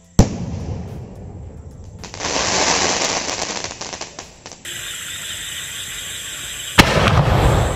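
Sony Vinayaga 'Lightning Thunder' aerial sky shot shell bursting with one sharp bang, then a dense crackling effect of many rapid small pops for a couple of seconds. Another sharp bang near the end.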